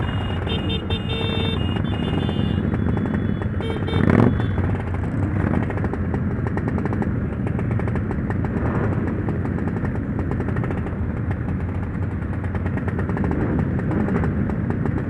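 Motorcycle engine running steadily under way, with constant road noise. There is a short loud blast about four seconds in, and a few high steady tones sound over the first two seconds.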